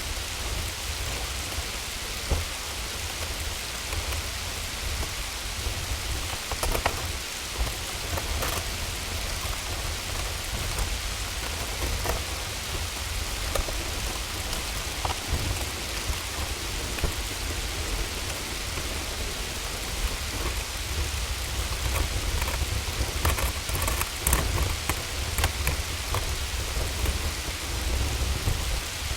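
Hailstorm: a steady hiss of heavy precipitation with scattered sharp ticks of hailstones striking, over a constant deep rumble. The ticks come thicker about three-quarters of the way through.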